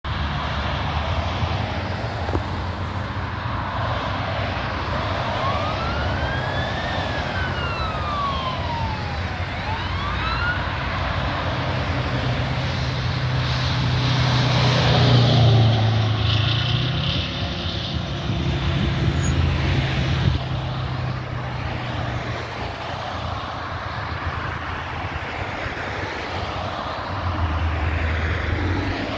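Fire engine on an emergency run: about five seconds in its siren wails slowly up and down in pitch, then the engine rumbles loudest as the truck passes. Steady highway traffic runs underneath.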